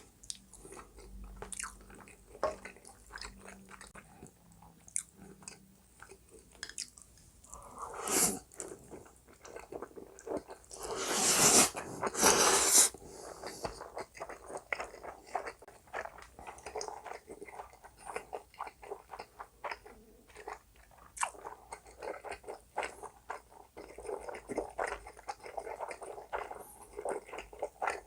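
Close-miked chewing and biting of noodles and Spam: a steady stream of small wet clicks, with two much louder, noisy sounds about eleven and twelve and a half seconds in.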